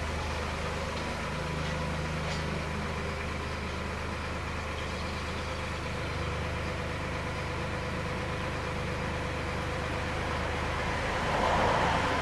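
Steady low hum of a distant engine, with faint steady tones above it, swelling briefly about a second before the end.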